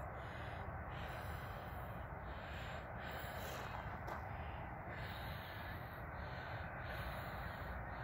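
Faint birds calling in the distance over a steady, low background rumble.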